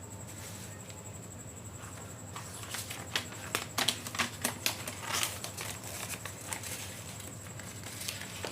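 Paper crinkling and rustling as a roll is wrapped by hand in white roll paper: a quick run of irregular crackles in the middle, then a few scattered ones.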